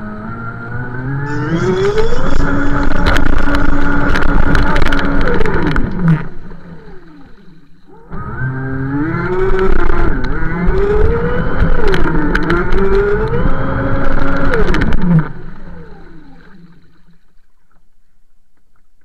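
6S LiPo-powered RC speedboat recorded from on board: the electric motor whines up and down in pitch with the throttle over water spray and hull splashing, in two runs of several seconds. About 15 seconds in it drops to a low hum as the boat comes to a stop dead in the water.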